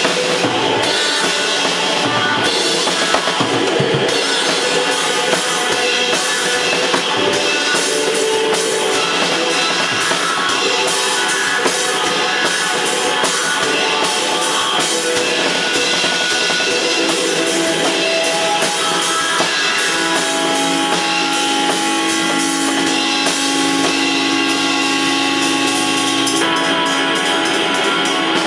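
Live rock band playing an improvised song, with a drum kit keeping a steady beat under guitar.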